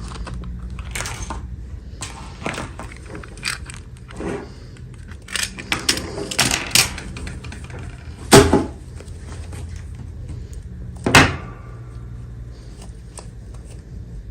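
Hands unboxing miniature dolls: plastic packaging and small pieces clicking, tapping and rustling, with two louder knocks about eight and eleven seconds in, over a steady low hum.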